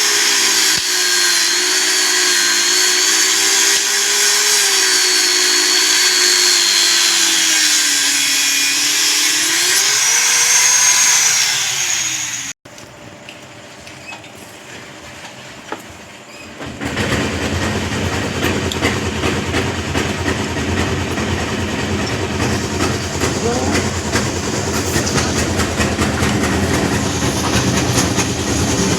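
A power tool's motor runs with its pitch sagging and rising again. After a sudden cut there is a quieter stretch, then about four seconds later a steady, rough machine noise that keeps on.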